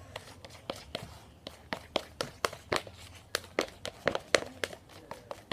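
Shampoo slime being worked and squeezed, giving a string of irregular sticky clicks and pops.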